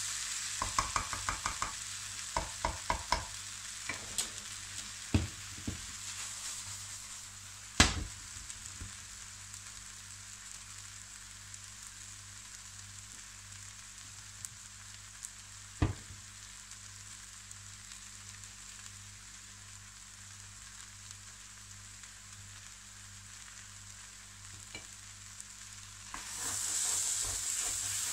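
Bulgur and chopped vegetables sizzling in a large frying pan, at the dry toasting stage before the water goes in. A spatula scrapes and taps the pan in quick strokes during the first few seconds. Two sharp knocks come later, and the sizzling grows louder near the end as stirring resumes.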